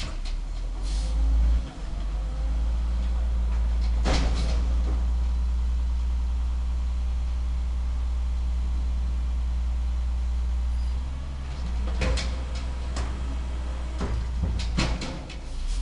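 Peterbilt garbage truck with an Amrep automated side loader, its diesel engine running with a steady low drone. Sudden sharp sounds break in about four seconds in, and several more come near the end.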